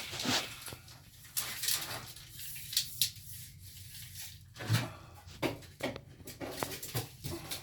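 Scattered light clicks, taps and rustles of hands handling tools and materials, irregular and with no steady sound.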